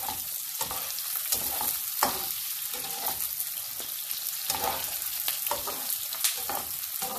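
Chopped onions sizzling in hot oil in a nonstick frying pan, a steady hiss, while a spatula stirs them with frequent irregular scrapes and taps against the pan.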